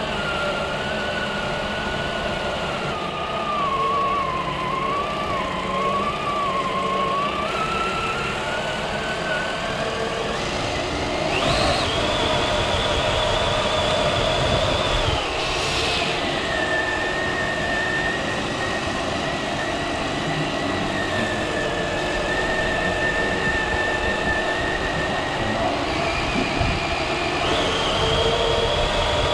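Traxxas TRX-4 Sport RC crawler's electric motor and gear drivetrain whining under load as it tows a person in a wheelchair, over the rolling noise of its tyres and the wheelchair's wheels. The whine changes pitch as the speed changes: it climbs sharply about twelve seconds in, drops a few seconds later, and rises again near the end.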